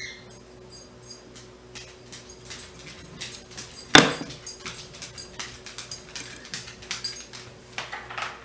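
A loaf of cold-process soap being cut into bars: a run of light clicks and knocks, with one sharp knock about four seconds in.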